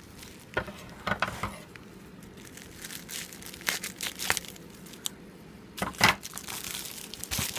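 Parcel packaging being crinkled, rustled and torn open by hand, in irregular crackling bursts, the loudest about six seconds in.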